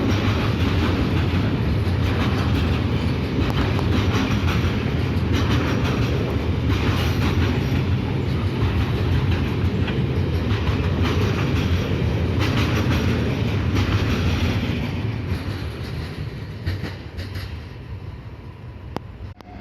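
Freight train rolling through a station, its wagons clattering steadily over the rail joints; the sound fades away about three-quarters of the way in as the train recedes.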